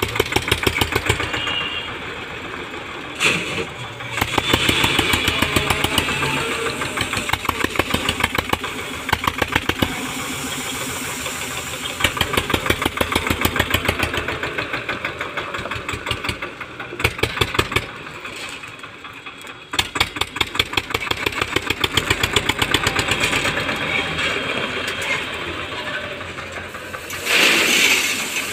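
Eicher 242 tractor's diesel engine chugging with an even beat, speeding up and slowing as it works a front loader. Near the end, crushed stone pours from the loader bucket into a trolley with a short rushing clatter.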